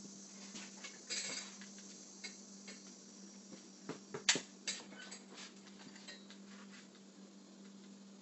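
A scatter of light clicks and small metallic rattles, loudest in a quick cluster about four seconds in, over a steady low hum. No gunshot.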